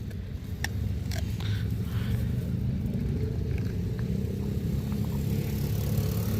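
A vehicle engine running steadily as a low rumble, with a few faint clicks near the start.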